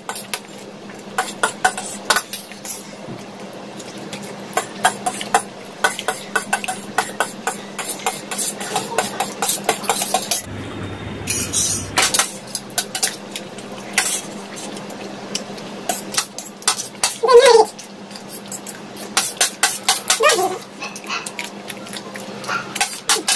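Two people eating noodles: steel spoons and forks clicking and scraping on steel plates, mixed with slurping and chewing, as a fast, irregular run of sharp clicks. A louder, short sweeping sound rises out of it about 17 seconds in.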